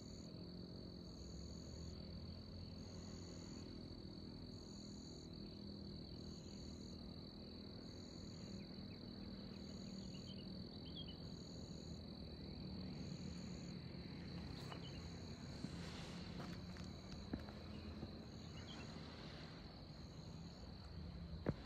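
Insects calling: a steady high-pitched trill with a regular pulsed chirp repeating about once a second above it, over a faint low hum.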